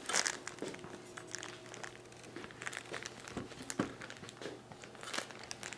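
Light rustling with scattered small clicks and knocks: handling noise as a camera is picked up and carried to a new viewing angle.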